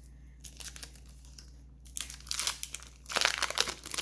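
Foil Pokémon booster pack wrapper crinkling as it is handled and torn open: faint crackles at first, growing into loud, dense crinkling from about two seconds in.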